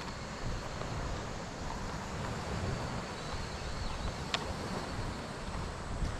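Wind buffeting the microphone in an uneven low rumble, with a faint steady high-pitched tone behind it. A single sharp click about four seconds in.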